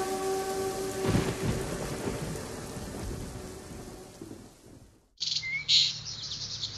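Rain falling with a thunder rumble about a second in, under a held musical chord that stops as the thunder hits; the storm fades away, and after a moment of near silence birds start chirping, a morning ambience.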